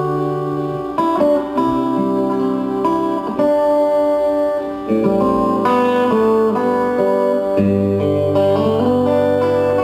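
Guitar playing an instrumental passage: melody notes ringing over held bass notes that change every couple of seconds.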